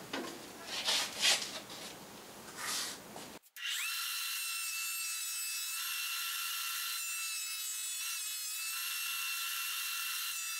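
A wooden board knocked and rubbed as it is set against the fence of a benchtop jointer. About three and a half seconds in, an abrupt cut leads to the jointer running steadily with a thin, high whine, with small wavers as the board edge is fed over the cutterhead to true it flat and square.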